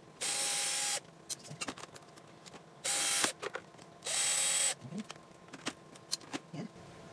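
Electric screwdriver running in three short bursts, each with a steady whine, backing screws out of an espresso machine's casing. Small clicks and knocks of parts being handled come between the bursts.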